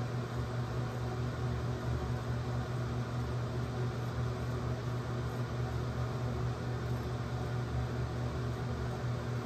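Steady low mechanical hum of a ventilation fan or air handler, with an even hiss over it and no separate strokes standing out.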